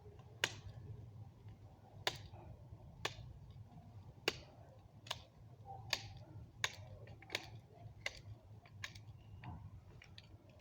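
Pocket knife shaving wood off a hand-drill spindle: a series of sharp clicks at irregular intervals, about one a second, as the blade cuts.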